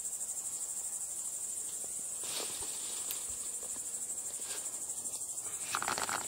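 Crickets chirping in a steady, dense, high-pitched trill, with a few faint rustles.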